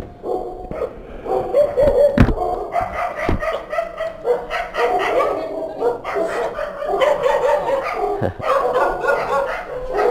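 Dog barking repeatedly in short calls, with a few sharp knocks in between.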